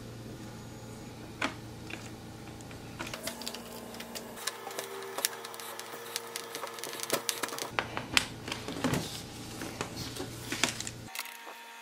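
Fast, irregular clicking and ticking of a screw being driven by hand with a Phillips screwdriver through a fabric safety strap and a metal corner bracket into a wooden crib frame, starting about three seconds in, over a steady low hum.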